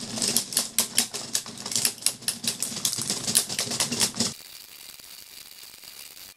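Plastic airsoft BB pellets clicking and clattering inside a 3D-printed mechanical dot matrix display as its stepper motor lifts and places them, in rapid, irregular clicks. About four seconds in the clicking stops, leaving a quieter steady hum with a faint high whine.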